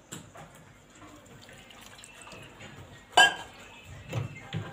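Water poured into a steel grinder jar over chopped tomato, ginger and garlic, with light clicks and one loud knock of the jar or container about three seconds in.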